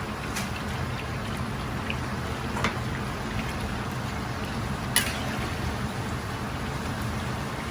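Steady hiss and hum of a commercial Chinese kitchen at work, with three sharp clicks of utensils or cookware.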